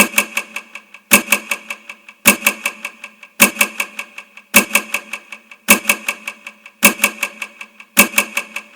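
A short sharp rattling clatter: a hard hit followed by a quick run of fading ticks, with a metallic ring. It repeats identically about once a second, like a looped sound effect.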